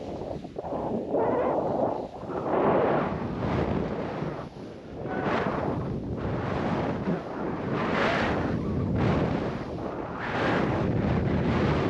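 Skis carving down a snow slope: a rushing hiss that swells and fades with each turn, with wind buffeting the microphone.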